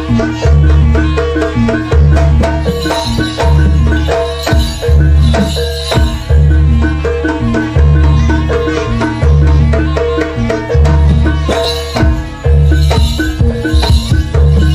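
Live Javanese jaranan gamelan music: drums (kendang and large bass drum) beat a heavy, regular rhythm under quick notes from mallet-struck metal instruments, with bright jingling on top.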